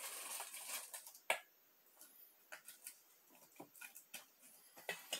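Pieces of bark being handled from a metal bowl and laid inside a glass jar: a rustling scrape at the start, one sharp knock about a second in, then scattered light clicks and taps.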